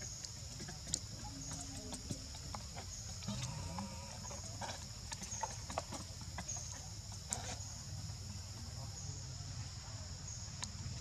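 Outdoor ambience: a steady high-pitched drone over a low hum, with scattered small clicks and a few faint squeaks or calls.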